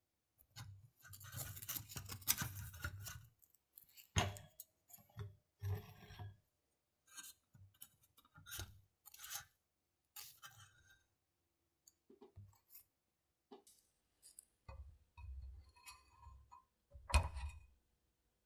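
Crisp-crusted taiyaki being handled with bamboo tongs and chopsticks in a non-stick taiyaki mold: irregular scraping and crackling of the crunchy crust against the mold, with light clicks of wood on the pan. There is a sharper knock near the end.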